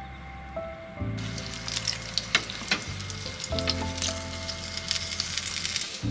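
Food sizzling in a hot frying pan, beginning about a second in, with frequent sharp crackles and pops. Soft background music plays underneath.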